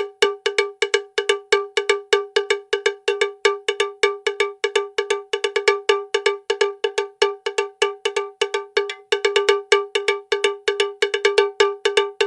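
A cowbell clanking fast and steadily, about five strikes a second, each with a bright ringing tone.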